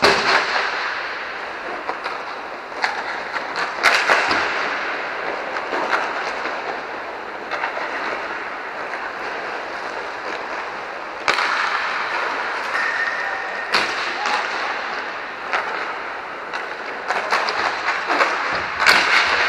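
Inline hockey play in a large, echoing dome: the steady rolling and scraping of skate wheels on the rink floor. Over it come a handful of sharp cracks of sticks striking the puck and the puck hitting the boards, the loudest right at the start and near the end.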